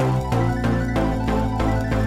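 Background music with a steady, quick beat, about four beats a second.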